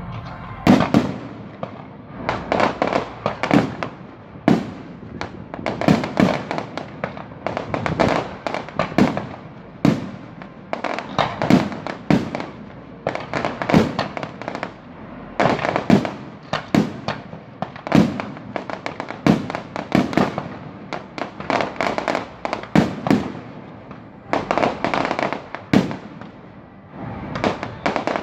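Aerial firework shells bursting one after another in a steady run of sharp bangs, several close together at times.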